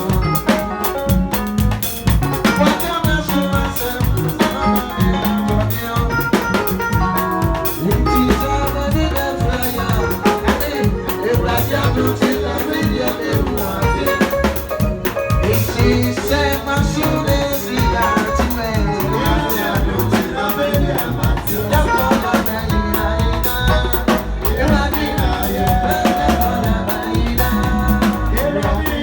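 Music with drums and a steady beat, playing without a break.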